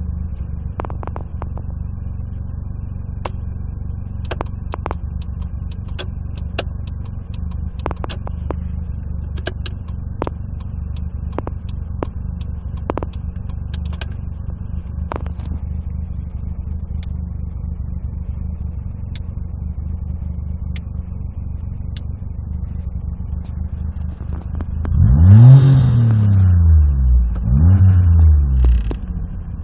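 Daewoo Tico's small three-cylinder engine idling steadily, heard from inside the cabin, with faint scattered clicks over the first half. Near the end it is revved twice in quick succession, the pitch rising and falling each time.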